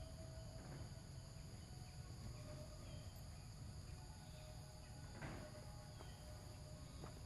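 Faint outdoor ambience: a steady high insect drone with a few short, soft bird-like chirps over a low background rumble, and a brief soft rustle about five seconds in.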